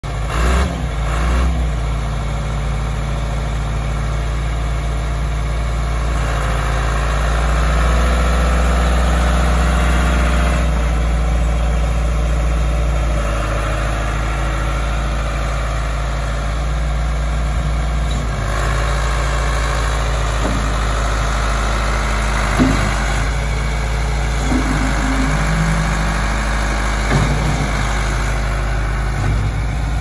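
John Deere 410B backhoe's turbocharged diesel engine running steadily as the machine is worked and driven, picking up in speed for a few seconds about a fifth of the way in and again past halfway. A few short sharp sounds come in the last third.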